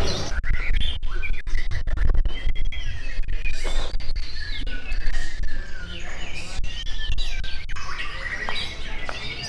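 Several caged contest songbirds singing at once, a busy jumble of overlapping whistled chirps and trills, over a steady low background rumble.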